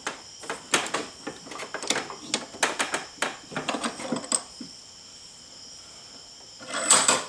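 Metal wiper arm being rocked and pressed down over a steel socket held in a bench vise, clicking and scraping irregularly as the replacement plastic bushing is forced into the arm's eye. The clicks pause for about two seconds, then a louder clatter comes near the end.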